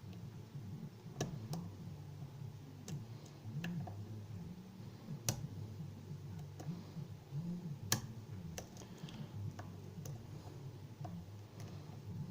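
Sharp, irregular clicks of a lock pick and tension tool working the pins of a pin-tumbler challenge lock, pins setting and springing under the pick, the loudest clicks about five and eight seconds in. A steady low hum runs underneath.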